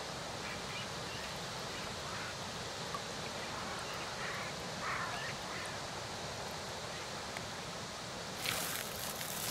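Outdoor ambience at the water's edge: a steady hiss of wind and background noise, with small birds chirping now and then. A sudden loud rustling burst comes near the end.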